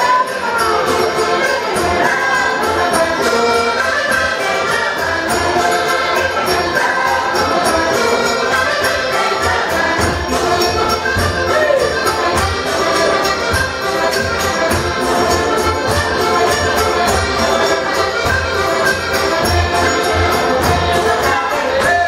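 Live Portuguese folk music for a chula dance, played by a rancho folclórico band with a steady beat and voices singing over it.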